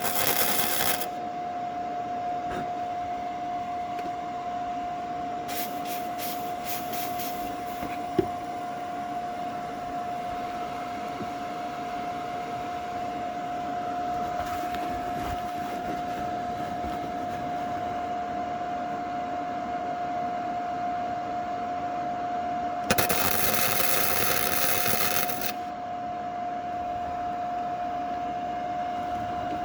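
Steady hum with a constant high whine from a 100-volt welder, broken by short bursts of harsh crackling hiss as the arc is struck on the steel frame. The longest burst lasts about two and a half seconds, late on, and there is a sharp click about eight seconds in.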